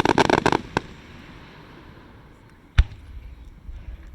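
Fireworks: a rapid burst of crackling at the start, one sharp pop just after, then a single deep boom nearly three seconds in.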